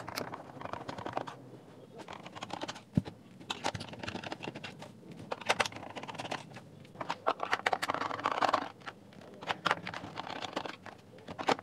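Hand screwdriver turning screws out of a plastic speaker housing: scratchy grinding in spells of about a second as screws turn, mixed with many small clicks and taps from the tool and the plastic case.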